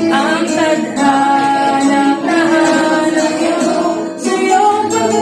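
Young male voices singing a pop ballad in long held notes over instrumental backing, with a short break between phrases about four seconds in.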